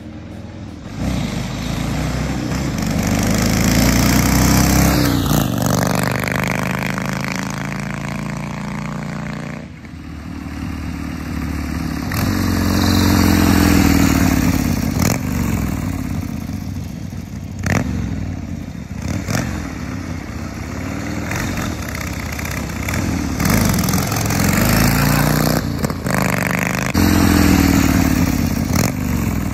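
1979 Harley-Davidson Ironhead XLS 1000cc V-twin running as the chopper rides past, its pitch rising again and again as it accelerates through the gears. The engine drops off briefly about ten seconds in before pulling up again.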